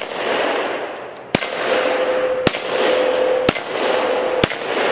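Nagant M1895 revolver fired double action, five shots about a second apart, the first right at the start. Each shot trails a long fading echo. From the second shot on, a steel target rings with a steady tone between shots.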